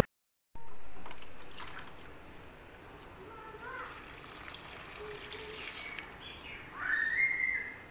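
Water poured from a small plastic watering can trickling onto the soil of potted plants. Near the end there is a brief, louder tone that rises and then holds.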